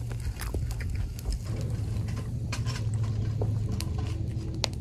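Close-up chewing and small wet mouth clicks as a bite of grilled yakitori is eaten, then drinking from a beer can, with a sharp click near the end, over a steady low rumble.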